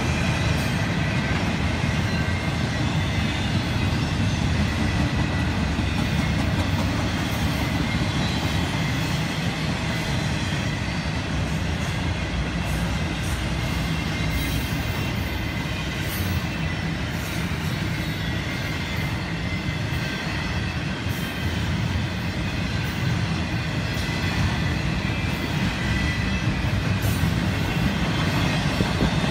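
Double-stack intermodal freight cars rolling past at steady speed: a continuous rumble of steel wheels on rail with scattered clicks from the wheels over the track.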